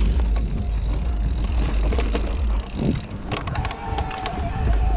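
Electric mountain bike ridden over a trail: wind rumbles on the microphone while the bike rattles and clicks over rough ground. A steady whine from the e-bike's motor comes in about three and a half seconds in.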